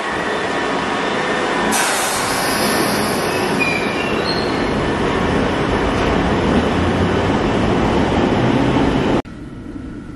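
London Underground tube train running in the station, a loud, steady noise with a few short, high wheel squeals about four seconds in. The noise drops abruptly to a quieter background near the end.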